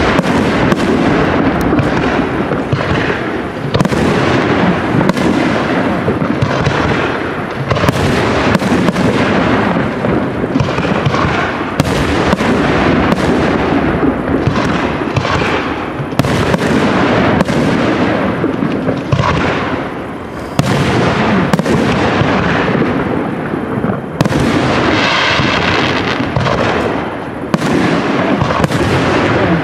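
Aerial firework shells bursting in rapid succession, a dense, unbroken barrage of bangs and booms.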